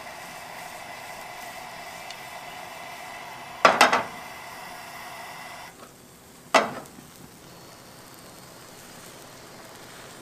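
Omelette frying in a non-stick pan over a gas burner: a steady hiss and light sizzle, broken by a quick run of loud knocks of the pan about four seconds in and one more knock about two and a half seconds later.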